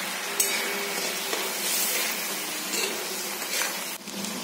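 Soybean barfi pieces cooking in bubbling curry gravy in a kadai, with a steady sizzle. A few short light knocks from stirring come through.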